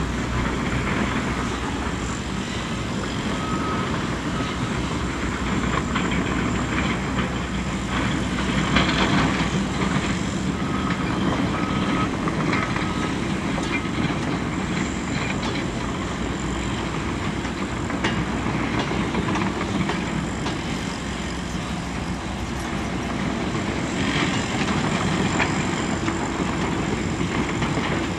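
Heavy diesel machinery working: a Caterpillar 320D crawler excavator, a Cat bulldozer and a dump truck running together. A reversing alarm beeps in two short spells, and there are a few knocks and clanks.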